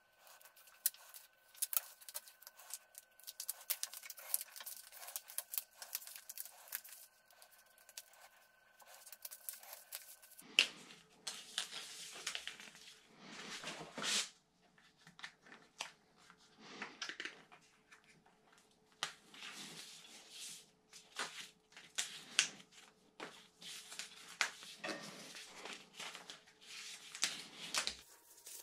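Handlebar tape being peeled and unwound off a road bike's drop bar by hand: irregular crackling and tearing of the tape as it comes away, with clicks and rustles of handling.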